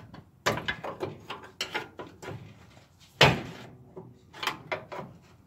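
Steel pry bar levering a front control arm out of its mounts on a 1966 Chevrolet El Camino: a run of sharp metal knocks and clanks, the loudest a little after three seconds in.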